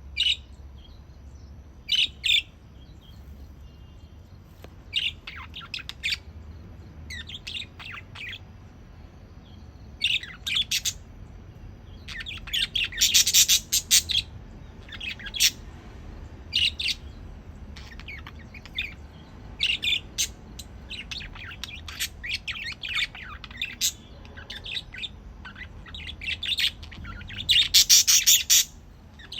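Budgerigars chirping and chattering in short high calls, with two louder bursts of rapid chatter, one about halfway and one near the end.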